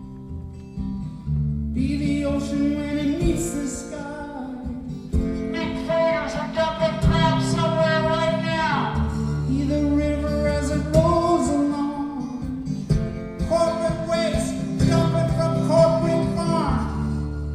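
Live solo acoustic music: guitar and low held chords under a long, sustained melody line whose notes slide down at the ends of phrases.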